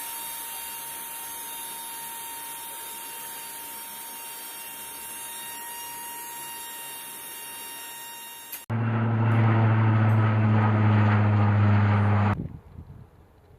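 Aircraft engine noise: a steady hiss with a thin whine. About nine seconds in it cuts abruptly to a much louder, steady low engine drone for a few seconds, then drops away suddenly.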